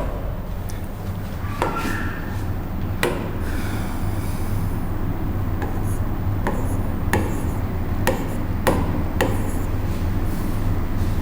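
Writing on a board: irregular sharp taps and short scratching strokes, over a steady low hum.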